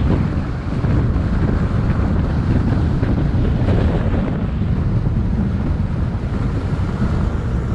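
Steady wind buffeting on the microphone of a camera riding on a moving electric mountain bike: a dense, low rumbling rush of air noise.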